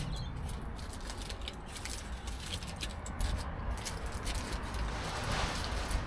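Foil and paper burrito wrappers crinkling and rustling as the burritos are unwrapped and handled while being eaten, with a thicker rustle about five seconds in, over a steady low background rumble.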